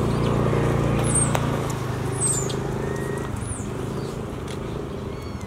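A motor vehicle engine running nearby, a steady low hum that is loudest in the first two seconds and then fades. Several short, high chirps that slide downward sound over it.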